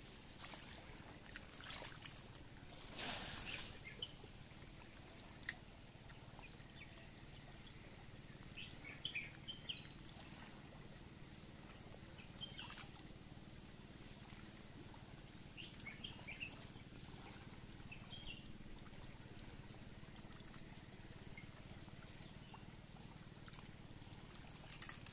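Faint outdoor ambience, a low steady background with a brief rushing noise about three seconds in and a few faint short high-pitched sounds scattered through it.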